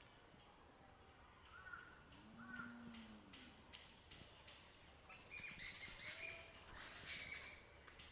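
Faint bird calls in the background over near silence, the most prominent a longer call in the second half, with a few faint clicks.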